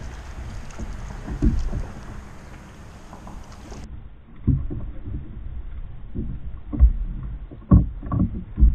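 Wind and water noise around a fishing kayak, with a handful of dull knocks on the kayak as a fish is landed, bunched toward the end.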